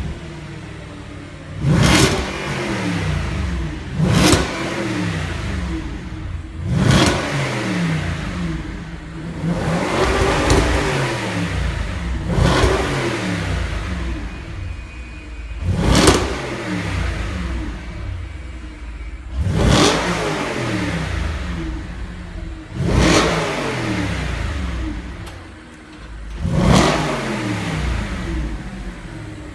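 Audi RS5's 4.2 FSI V8 revved through its sports exhaust: about eight sharp throttle blips, two to four seconds apart, each rising and then falling back toward idle.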